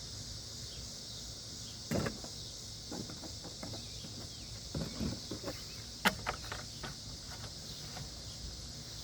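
Steady chorus of crickets, with scattered clicks and knocks as a gas can and fuel cap are handled while filling a small edger engine's tank; the sharpest click comes about six seconds in.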